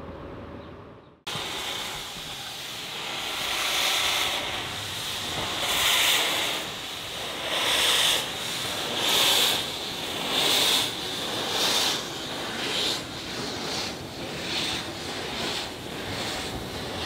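Harzer Schmalspurbahn steam locomotive 99 7247-2, a metre-gauge 2-10-2 tank engine, pulling away with its cylinder drain cocks open. Steam hisses, with exhaust chuffs about every second and a half that quicken to nearly one a second as it gathers speed. The sound starts suddenly about a second in.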